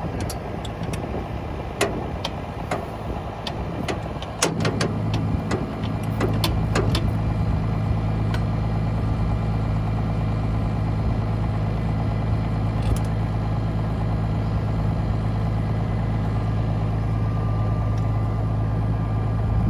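Tractor engine running, with a string of sharp clicks and knocks over the first several seconds. About four and a half seconds in, the engine note steps up to a steady, louder run.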